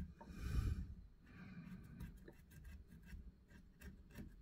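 Pencil scratching short marks for drill holes beside a model railway point, with one louder stroke about half a second in, fainter scratching after it and a few light ticks near the end.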